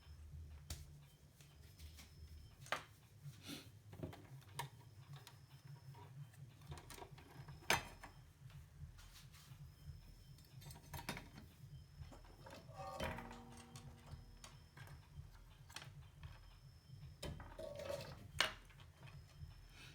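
Small tools and metal parts being handled on an electronics workbench: scattered light clicks and taps, with a short metallic ring about thirteen seconds in, over a low steady hum.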